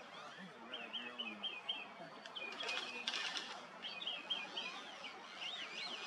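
Songbird calling: quick runs of five or six short, high chirped notes, with a brief denser burst of notes near the middle and a few looping notes near the end.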